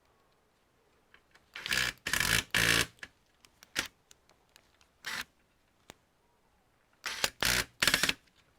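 Clicking and rattling of computer parts and tools being handled, in two short clusters of loud clatter about five seconds apart, with single clicks in between.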